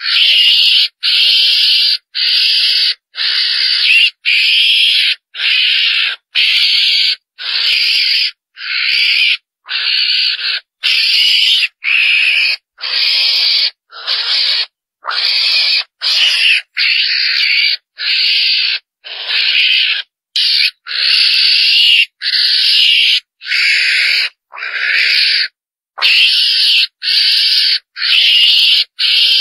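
Mongoose (chồn đèn) calls played as a hunting lure: loud, high-pitched calls repeating about once a second, each a little under a second long, with a brief gap a few seconds before the end.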